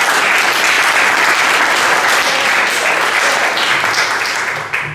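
Church congregation applauding: dense clapping that stops near the end.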